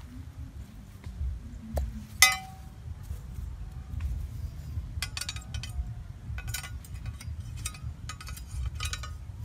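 A machete blade clinks sharply once against metal, ringing briefly, then a run of short tapping and scraping strokes as the blade works against the metal fork head and bamboo.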